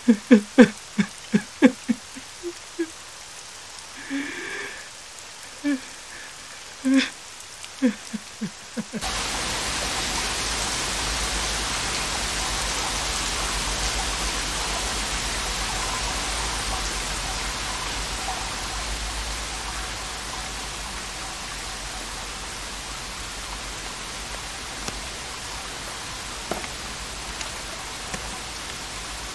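A man sobbing and crying out in short, broken cries with pauses between them, then an abrupt cut about nine seconds in to steady heavy rain, which eases off a little later on.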